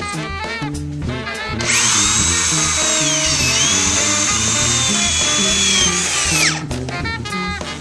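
Power drill driving roofing screws into roof sheet metal: the motor whine spins up, runs about five seconds with a brief dip in pitch, then winds down. Swing music with a steady beat plays under it.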